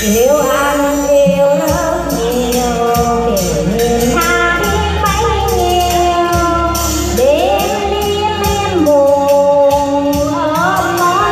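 A woman singing a melody into a microphone over a music backing track with a steady percussion beat.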